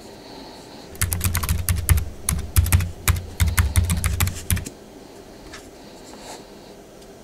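Cardboard packaging tube handled close to the microphone: a rapid, irregular run of sharp taps and clicks with dull thumps under them. It starts about a second in and stops suddenly after about three and a half seconds.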